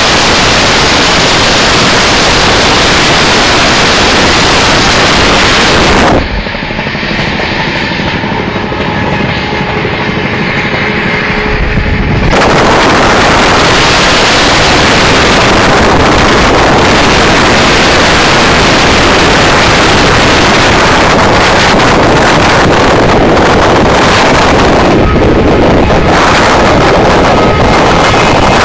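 Heavy wind rush on a microphone held out of the window of a fast-running Rajdhani Express passenger coach, mixed with the train's running noise. About six seconds in the rush drops for around six seconds, letting a few faint steady tones through, then comes back at full strength.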